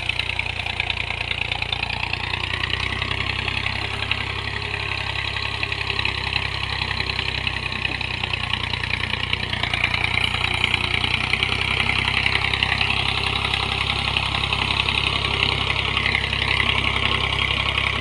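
Farm tractor's diesel engine running steadily under load, pulling a tine cultivator and wooden levelling plank through tilled soil.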